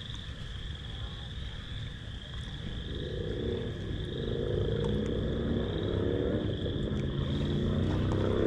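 A steady high insect trill, joined about three seconds in by a low droning motor with several steady pitches that grows slowly louder.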